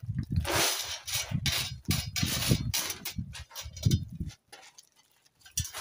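White gravel tipped from a hand trowel, stones pouring and clattering down with scrapes and knocks of the trowel, alongside low rumbling bursts; quieter after about four seconds.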